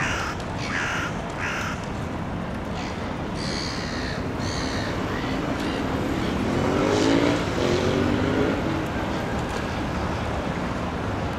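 Steady city traffic noise with a few harsh cawing bird calls at the start. Around the middle an engine accelerates, its pitch rising, then eases off.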